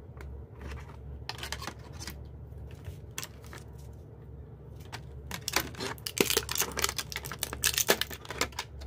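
Unboxing packaging being handled: scattered rustles and clicks from a paper instruction leaflet, then a clear plastic bag around a USB cable crinkling densely and loudly through the second half.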